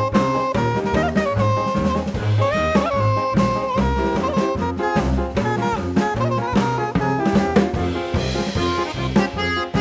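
Upbeat jazz background music: a saxophone-like lead melody over a walking bass and drum kit with a steady beat.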